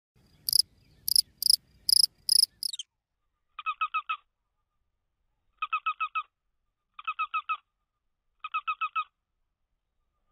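Rhythmic chirping: five loud, shrill chirps in the first three seconds, then groups of four or five quick, lower pips repeating about every one and a half seconds.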